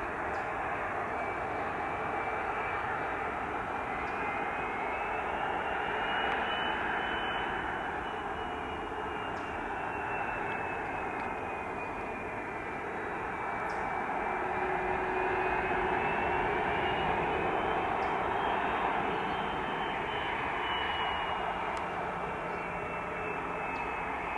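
Jet airliner's engines running: a steady rush with a thin high whine that slowly rises and falls twice.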